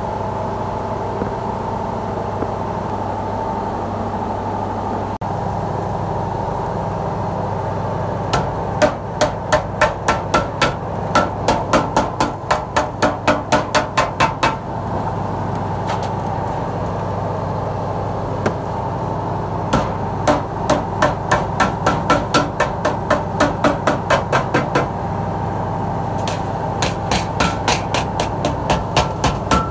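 Wooden mallet beating a galvanized steel sheet over a steel edge to fold a tray's sides: quick runs of ringing metallic strikes, about three or four a second, starting about eight seconds in and pausing briefly around fifteen and again around twenty-five seconds. A steady mechanical hum runs underneath throughout.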